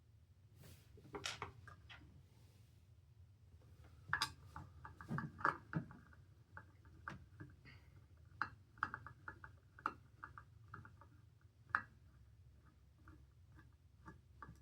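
Hands handling the metal parts of a Pyr-A-Larm fire alarm horn during disassembly: scattered light clicks, taps and clinks with a short metallic ring, quick runs of small ticks in the middle. The horn itself is not sounding.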